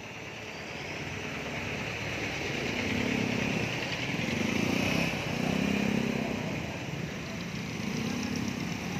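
Traffic passing on the highway, with a motor scooter's engine growing louder as it goes by close, loudest around the middle, then easing off slightly.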